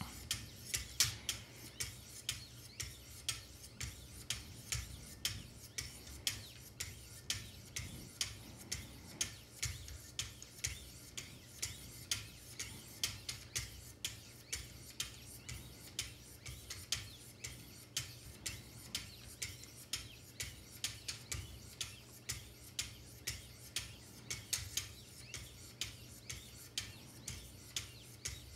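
Wicked Edge sharpening paddles fitted with 1000-grit lapping film stroking along both sides of a clamped knife blade, a soft scrape with a light tick at each stroke, about two strokes a second.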